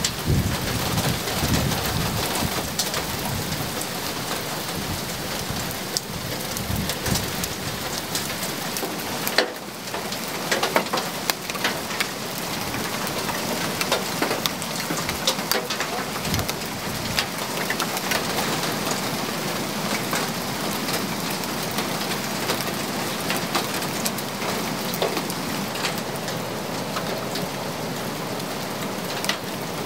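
Heavy rain and hail pelting roof tiles and a garden in a thunderstorm: a dense, steady hiss full of sharp clicks of individual hits. A low rumble of thunder comes in the first few seconds.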